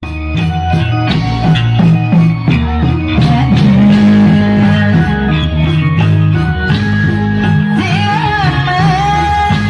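Loud band music with a steady beat and a lead melody that wavers in pitch near the end.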